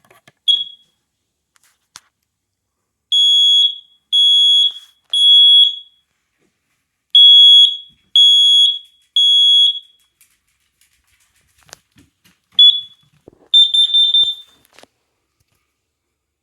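A smoke alarm being tested. After a short chirp, it gives two rounds of the three-beep fire-evacuation pattern: loud, high-pitched beeps about a second apart, with a pause between the rounds. Near the end there is a click, another short chirp and a broken, stuttering beep before it stops.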